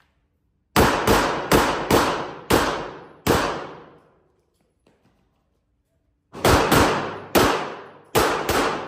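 Handgun fired in two quick strings, each shot ringing off the concrete-block walls of an indoor range: six shots starting about a second in, then a second string of about five starting about six seconds in.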